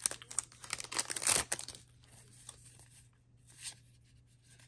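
Trading cards rustling and sliding as they are handled and flipped through, busiest in the first second and a half, then faint with one brief rustle a little past the middle.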